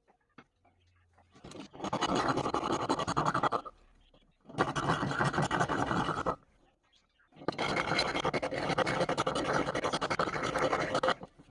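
Abrasive scratching from hand work, in three spells of rapid strokes of about two, two and four seconds, with short pauses between them.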